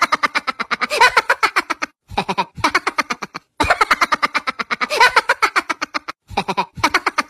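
A man laughing hard, a fast 'ha-ha-ha' of about ten pulses a second. It comes in four long bursts with short, abrupt silent gaps between them.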